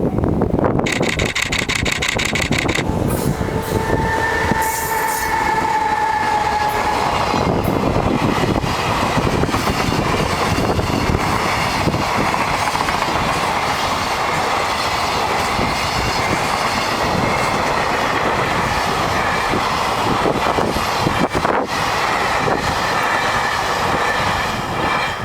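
EH500 electric locomotive and its container freight train passing close by. A run of rapid clicks as the wheels cross the rail joints comes in the first few seconds, then a brief high squeal about four seconds in. After that the wagons run past in a long steady rush of wheel and rail noise, which drops away right at the end.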